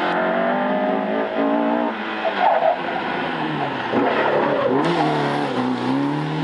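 Mk1 Ford Escort rally car's engine revving hard through a tight slalom, its pitch climbing and dropping again and again with throttle lifts and gear changes. A short tyre squeal comes about two and a half seconds in.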